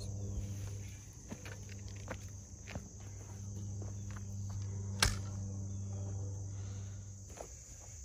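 Kioti compact tractor's diesel engine idling with a steady low hum, under a constant high insect drone. Footsteps on loose dirt and a few light knocks, with one sharp clack about five seconds in.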